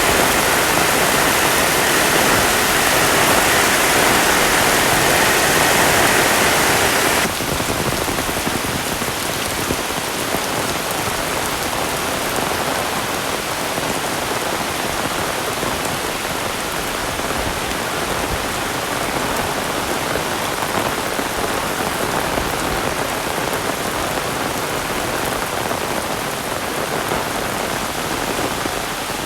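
Heavy rain falling in a steady, dense hiss. It is louder and brighter for about the first seven seconds, then drops suddenly to a slightly quieter, even downpour.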